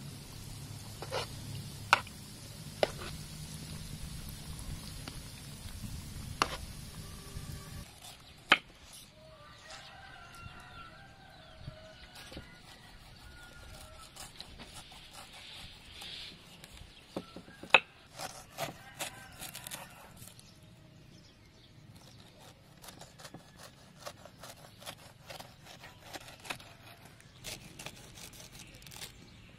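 Chicken pieces deep-frying in oil, sizzling steadily, with a few sharp taps of a spatula against the pan. About 8 seconds in the sizzling stops; a chicken clucks in the background, and a knife chops and scrapes through pineapple skin on a wooden board, with a few loud knocks of the blade on the board.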